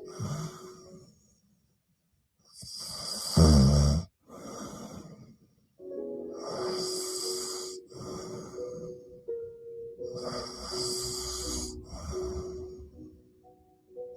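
A woman snoring in her sleep into a close microphone. One loud, rattling snore comes about three and a half seconds in, followed by softer snoring breaths every second or two. Quiet background music with sustained notes plays underneath.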